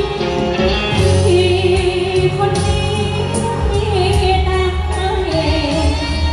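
A Thai luk thung song sung live into a microphone over amplified backing music, with long held notes and a steady bass beat.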